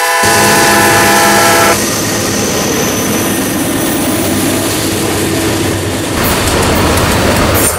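A diesel locomotive's horn sounding at a street crossing, cutting off abruptly a little under two seconds in. Then diesel freight locomotives rumble past close by, with engine and wheel-on-rail noise.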